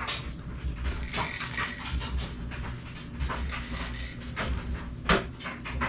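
Handling noise from a camera being moved about by hand: low rumble and rubbing, with panting breaths and one sharp knock about five seconds in.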